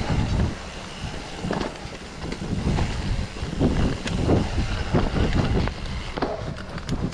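Wind buffeting the microphone as a mountain bike rolls quickly down a rough dirt singletrack, with irregular low thuds and rattles as the bike hits bumps.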